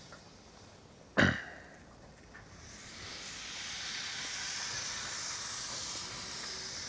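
Saddle-tank steam locomotive moving off with its train: a single sharp bang about a second in, then a steady hiss of steam from the open cylinder drain cocks that builds from about three seconds in.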